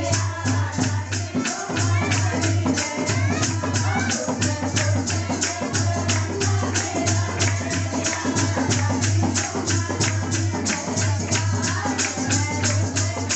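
Hindu devotional kirtan music: singing over a steady rhythmic percussion beat at about four strokes a second, with a steady low hum underneath.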